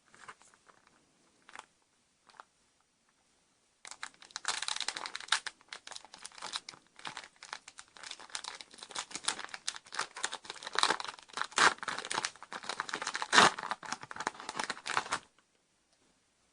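A Yu-Gi-Oh Magic Ruler booster pack wrapper crinkling and tearing as it is opened by hand, after a few faint handling clicks. The crinkling starts about four seconds in, runs for some eleven seconds with sharp crackles, loudest near the end, and stops suddenly.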